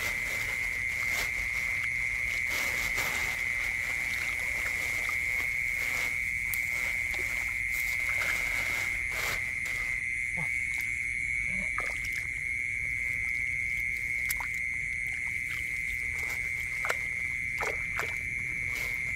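Steady, high-pitched chirring of night insects in a rice field, with occasional splashes and squelches of hands working in shallow muddy water.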